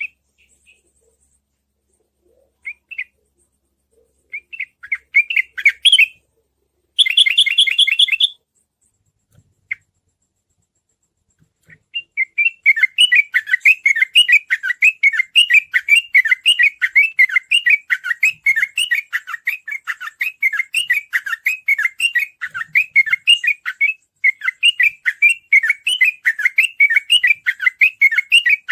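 Yellow-vented bulbul (trucukan) song: a few short scattered phrases and a brief dense burst, then from about halfway in a long unbroken run of rapid repeated chattering notes, the fast continuous 'ropel' style of singing.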